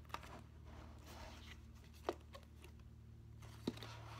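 Faint handling of a fabric pencil case and its keychain: light rustling with three short clicks, one at the start, one about two seconds in and one near the end, over a steady low hum.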